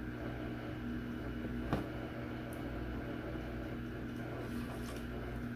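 A steady low mechanical hum, with a single sharp click about two seconds in.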